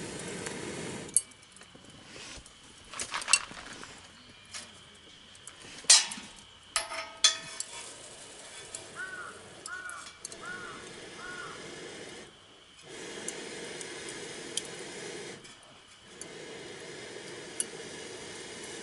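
Dishes and cookware clinking and knocking as they are handled, in scattered short strikes; the loudest comes about six seconds in, and one clink just after it rings briefly.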